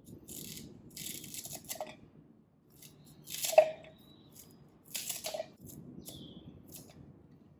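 Kitchen food-preparation handling sounds: four short bouts of scraping and rustling, with a sharp clink about three and a half seconds in.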